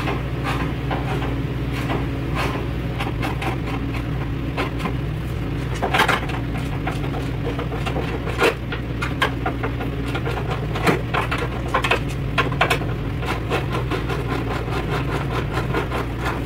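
Steady low hum of a running machine, with scattered sharp clicks and knocks of metal handling as a pickup's hood is held up and unbolted at its hinges.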